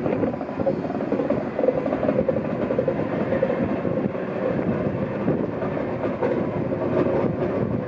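A DR class 132 'Ludmilla' diesel locomotive running steadily, its V16 diesel engine working as the locomotive moves slowly along the track.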